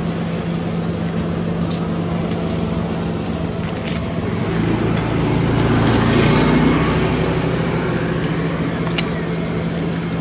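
A motor running steadily with a low hum, growing louder about halfway through and then easing off, as a vehicle passes.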